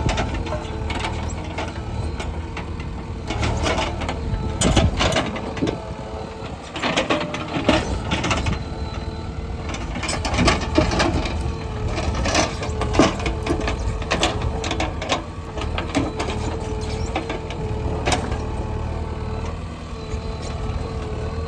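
JCB 3DX backhoe loader's diesel engine running under load with a steady whine, and irregular knocks and scrapes as the bucket works against stones and earth.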